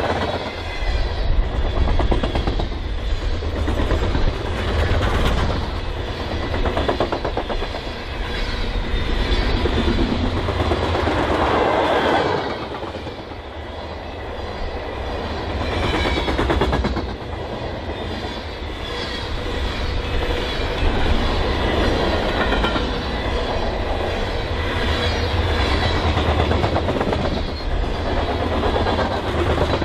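BNSF freight train cars rolling past: a steady rumble of steel wheels on the rails with many rapid clacks.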